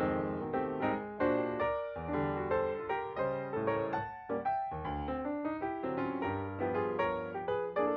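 Background piano music: a steady run of piano notes, each struck and fading.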